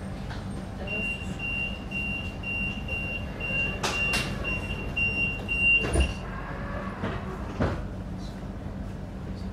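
Door warning beeper inside an SZU Uetlibergbahn S-Bahn train, beeping about twice a second for some five seconds over the train's steady hum. The beeping ends with a thump, and a few more knocks follow.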